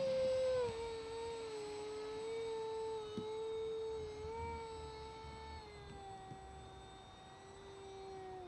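Electric motors and propellers of a Banana Hobby V-22 Osprey RC model whining in flight: a steady high tone that drops in pitch about a second in, then slides slowly lower as it fades.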